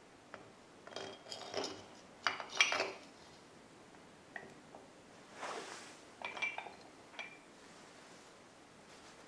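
Metal parts of a bottle jack clinking and knocking together as the body is lowered over the ram and seated on its base: a cluster of sharp clinks in the first few seconds, a short rub about halfway, then a few lighter clinks.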